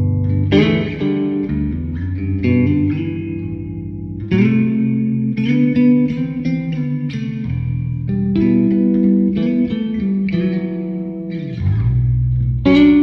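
Squier Bass VI six-string bass played with a pick, running through low single notes and chords that ring out. There are strong picked attacks about half a second in, just after four seconds, and near the end.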